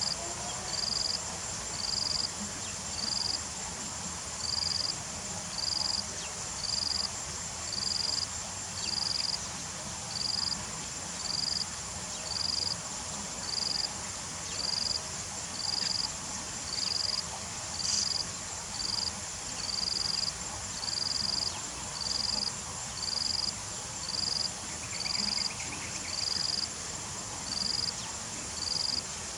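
Insects calling: a short high chirp repeating evenly, about four chirps every three seconds, over a steady high-pitched insect buzz.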